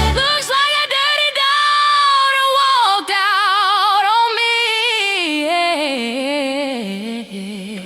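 The band cuts out and a lone voice sings unaccompanied without words: long held notes with wide vibrato, stepping down in pitch over the last few seconds.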